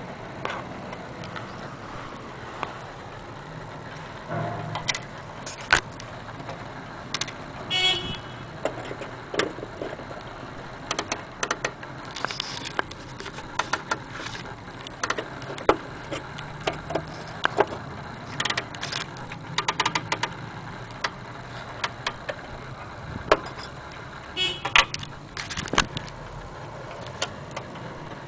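Irregular clicks and light knocks from handling, two of them with a brief metallic jingle, over a steady low background rumble.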